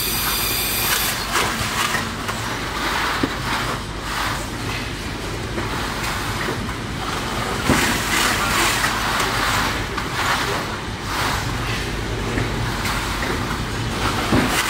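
Factory floor machinery noise: a steady low hum with swelling mechanical whirring and a few sharp knocks and clatters.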